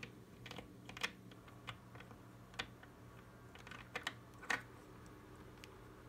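Irregular light plastic clicks and taps from a thumb-operated analog joystick module being pushed about by hand, about a dozen in a few seconds, the loudest about four and a half seconds in.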